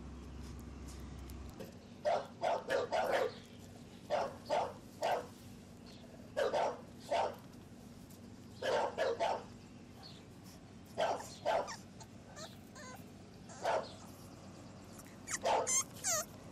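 English Bulldog puppy barking in short, sharp barks, grouped two to four at a time, with a cluster every couple of seconds.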